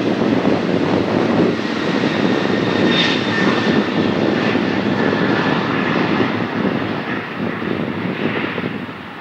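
Boeing 737-800's CFM56 jet engines at takeoff thrust: a steady, loud roar with a faint whine that slides a little lower in pitch as the jet lifts off and passes. The sound fades over the last couple of seconds as the plane climbs away.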